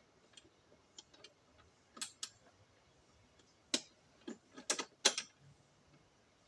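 Irregular sharp clicks and knocks of hard objects being handled, loudest in a quick cluster from about four to five seconds in.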